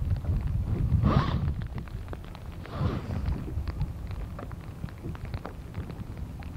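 Wind buffeting the microphone with a rough low rumble, and two louder rushes about one and three seconds in. Scattered light ticks of raindrops striking the camera's plastic rain cover run through it.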